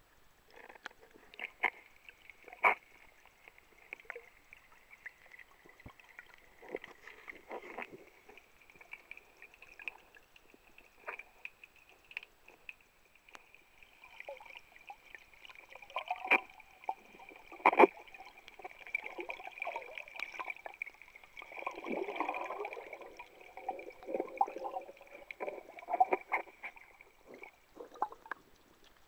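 Muffled underwater sound around a submerged camera: water gurgling and sloshing, with scattered clicks and knocks, over a steady high whine that stops near the end.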